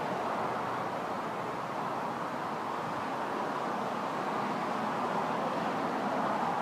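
Steady wash of road traffic from a multi-lane highway, with no single vehicle standing out.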